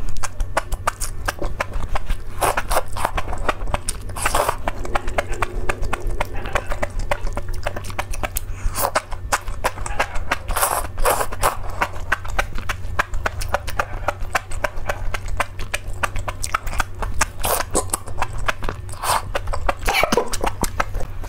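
Close-miked wet chewing and slurping of spicy enoki mushrooms eaten from chopsticks: rapid moist clicks with a louder slurp every few seconds. A steady low hum runs underneath.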